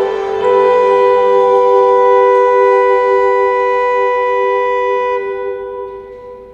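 A small early-music ensemble (portative organ, viola d'arco and voice) ends a piece on a held final chord. The chord changes just after the start and is then sustained steadily for about five seconds. The upper notes stop and the lowest note dies away near the end.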